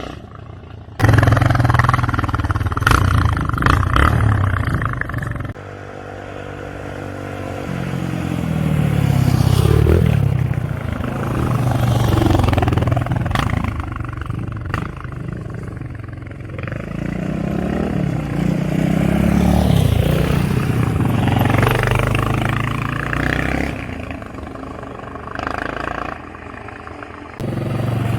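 Yamaha XT 600's single-cylinder four-stroke engine running, heard in several spliced clips that cut in and out abruptly. The engine note rises and falls repeatedly as the revs climb and drop.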